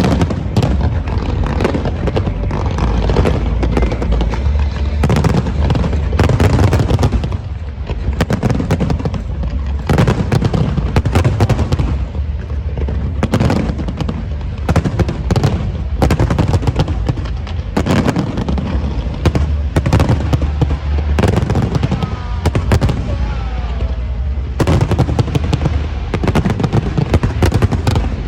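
Large fireworks display: rapid, overlapping bangs and crackles of bursting shells over a continuous deep rumble, with a few whistles gliding in pitch about 22 seconds in.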